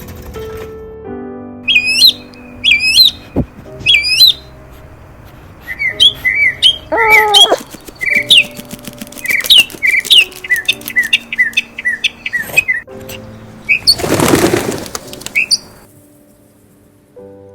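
A small bird chirping and whistling over soft background music. Three swooping whistles come about two seconds in, then a quick run of short chirps with a harsher, lower call around seven seconds. About fourteen seconds in there is a loud rush of noise lasting about a second.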